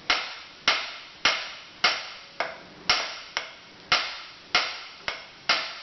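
Repeated hammer blows, about two a second, on a nut threaded onto the end of a lawn tractor engine's crankshaft, each strike ringing briefly. The nut protects the shaft threads while the hammering shocks the stuck flywheel loose.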